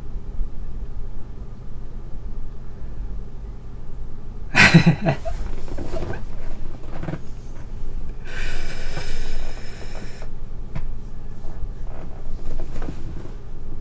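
A person laughing briefly under their breath, a few quick bursts about four and a half seconds in, over a steady low hum. A hiss follows for about two seconds, a little past the middle.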